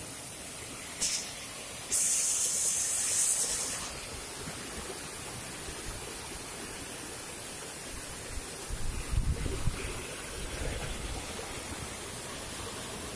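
Waterfall rushing: a steady, even hiss of falling water. A short sharper hiss comes about a second in, then a louder high hiss for about two seconds, and a few low bumps come around nine seconds.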